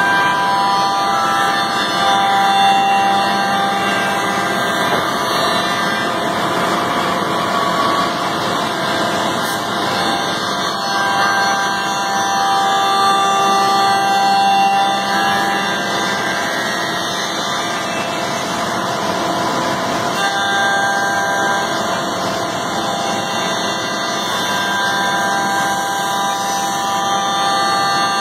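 Pade Velox five-axis CNC wood machining centre running, a continuous machine noise with several steady tones that shift in pitch every few seconds as it works.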